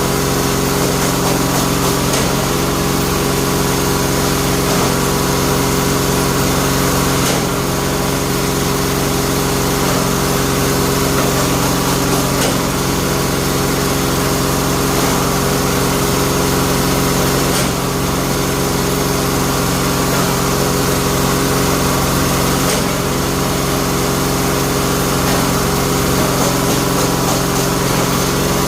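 Bamboo splitting machine running steadily with a constant motor hum, the sound shifting briefly about every five seconds.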